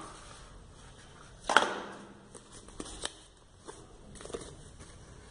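Small cardboard box and its paper contents being handled: a brief sharp rustle about one and a half seconds in, then faint taps and light rustling.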